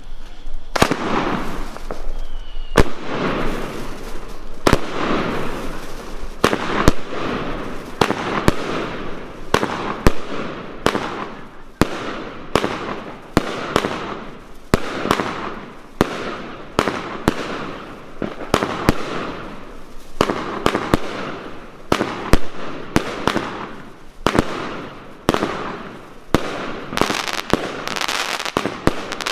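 A 25-shot consumer fireworks cake, the Luypaers Eurasian Lynx, firing in sequence. Sharp bangs come at about one a second, each followed by a short fading rush of noise.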